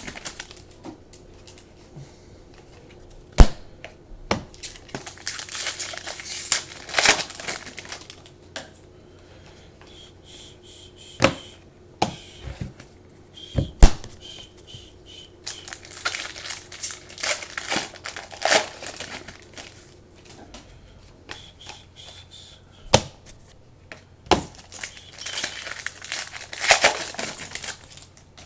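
Foil trading-card pack wrappers crinkling and tearing as packs are opened by hand, in several bursts, with a few sharp clicks in between as cards and packaging are handled.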